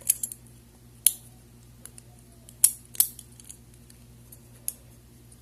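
Steel handcuffs and a thin metal handcuff shim being handled: a handful of sharp, irregularly spaced metallic clicks and taps, over a steady low hum.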